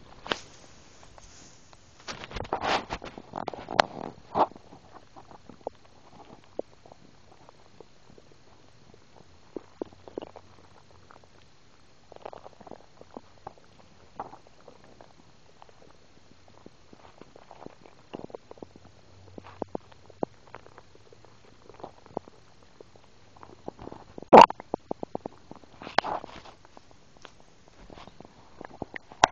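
Overfull stomach gurgling after a big meal: irregular short gurgles and pops, busiest in the first few seconds, with one sharp, loud click about 24 seconds in.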